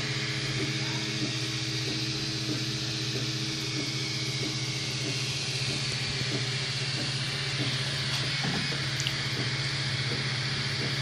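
3D printer at work: a steady hum from its fans, with short stepper-motor whirs repeating every half second or so as the print head moves back and forth laying down plastic.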